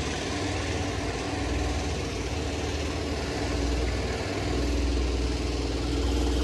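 Steady rush of fast-flowing river water, with a fluctuating low rumble of wind on the microphone.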